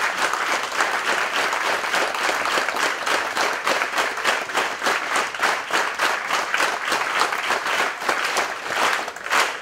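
Concert audience applauding; about halfway through, the clapping falls into a steady rhythm in unison.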